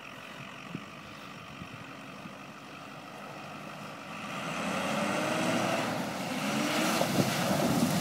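Ford F-250 Super Duty pickup's engine running steadily as it drives, then getting louder from about halfway through and revving up twice with a rising pitch. Near the end, loud splashing of water as the truck plows through a stream.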